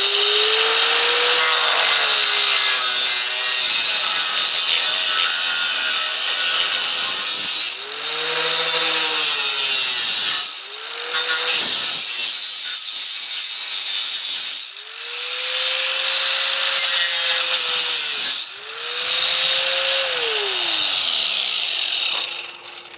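Harbor Freight Drill Master 4.5-inch angle grinder cutting through a thin metal rod, with a harsh grinding hiss of wheel on metal. The motor's pitch sags each time the wheel bites and recovers when it eases off, with a few brief let-ups. Near the end it is switched off and winds down.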